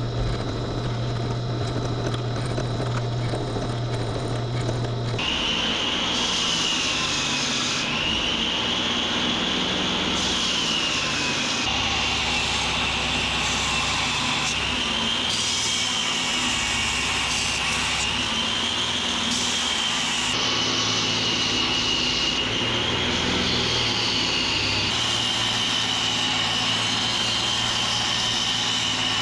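An electric power tool running continuously, with a high whine that slowly wavers up and down from about five seconds in.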